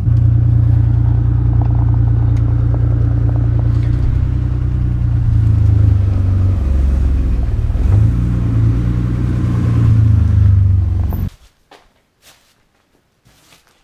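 1987 BMW 535is's M30 straight-six idling just after starting, running a little rough, with the idle wavering about halfway through. The sound cuts off suddenly near the end, leaving only a few faint clicks.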